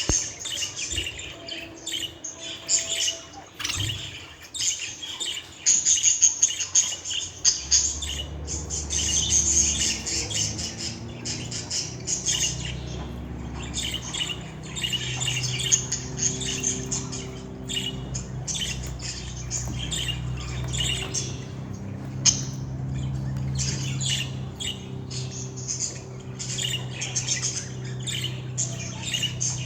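Budgerigars chirping and warbling in a continuous fast chatter of short squawks and trills, with a low steady hum underneath from about a quarter of the way in.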